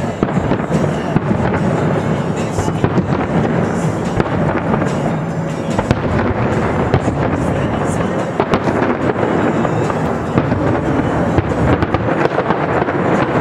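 Aerial fireworks shells bursting in rapid succession, a continuous loud barrage of overlapping booms and crackling reports with no pause.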